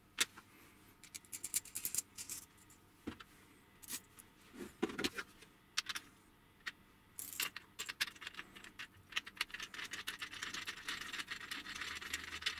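Faint handling clicks and knocks of 3D-printed plastic parts and a steel bolt, then from about halfway a quick, continuous run of small rattling clicks as the M8 depth-limit bolt is screwed by hand into the threaded nut in the plastic base.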